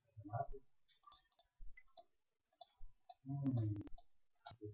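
Computer mouse buttons clicking: a scattered run of short, sharp clicks, several a second at times. A brief low murmur comes through about three seconds in.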